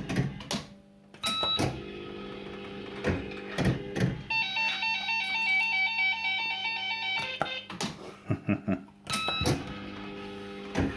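Firecracker fruit machine in play: sharp mechanical clunks of buttons and reels stopping, with electronic bleeps and, midway, a few seconds of a stepping beeped tune from the machine's sound effects.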